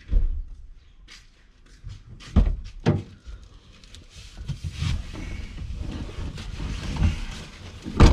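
A string of knocks and thumps with rustling in between as two men climb into a 4x4 off-road vehicle: doors and bodies against the car, two close knocks early and the loudest thump at the very end.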